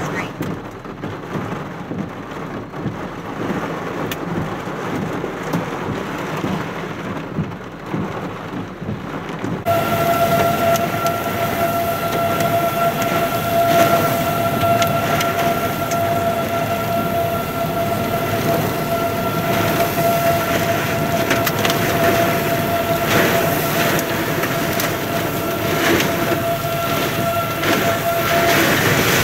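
Heavy rain pouring on a vehicle, heard from inside the cab. It turns abruptly louder and harsher about ten seconds in. From that point a steady, unchanging high tone sounds along with the rain until near the end.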